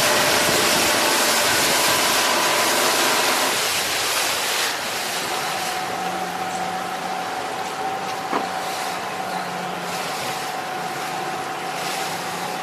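Boat running at speed: a loud rush of wind and water spray past the hull over the steady drone of the boat's motor. About five seconds in the rush eases a little, and a single sharp click comes about eight seconds in.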